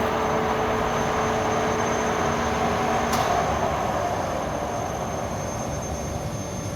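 FIL FA 130 CNC milling machine running, a steady mechanical noise with a high whine throughout. A lower hum stops with a click about three seconds in.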